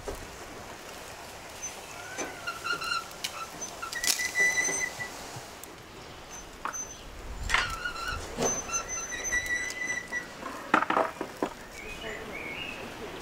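Birds chirping and calling, with several short, clear whistled notes and a few scattered sharp clicks.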